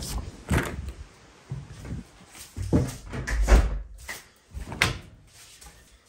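A door with a keypad lock being opened by its lever handle, the latch clicking, followed by a string of knocks and a heavy thump about three and a half seconds in, then another sharp click near the end.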